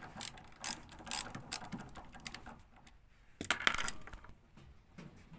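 A commercial Speed Queen washer's drive mechanism clicking and knocking irregularly, with a louder rattle about three and a half seconds in. The machine has a pulley problem.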